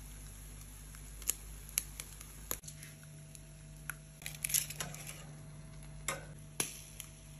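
Metal tongs clicking and scraping against the metal grate of a tabletop grill as tuna eyes are handled. There are about eight sharp clicks, spread irregularly, with a cluster a little past halfway, over a steady low hum.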